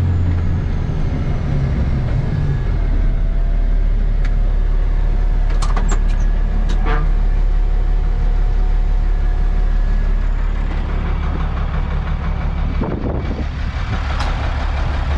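Plow truck's engine running, heard from inside the cab: a steady low drone that drops in pitch in the first couple of seconds, as the truck slows, and then holds. A few short clicks come about five to seven seconds in.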